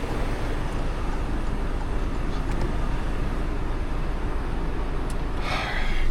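Truck engine idling with a steady low rumble, and a short hiss about five and a half seconds in.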